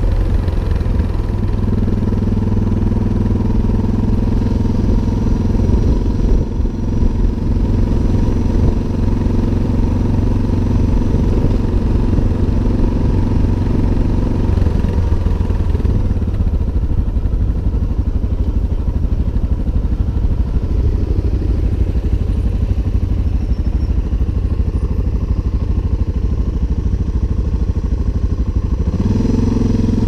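Suzuki DR650's single-cylinder engine running as the motorcycle rides down a paved road, over a steady low rumble. Its higher engine note drops away about halfway through and comes back, rising, near the end.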